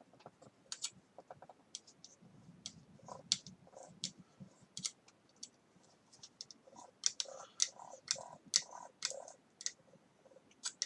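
Light, irregular clicking and ticking of small plastic and metal parts as a freshly assembled RC buggy differential is turned by hand to check its setting; it offers a little resistance.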